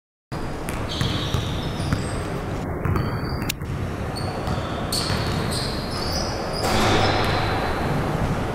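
Basketball game play on a hardwood gym floor: a basketball bouncing and sneakers squeaking in many short, high chirps, with a louder stretch of noise about seven seconds in.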